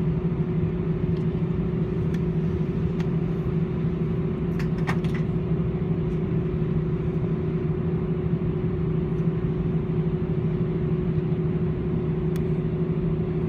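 Airbus A318's CFM56 engines at taxi idle, heard from inside the cabin: a steady hum with two steady tones over a low rumble from the taxiing aircraft. A few light clicks come about five seconds in.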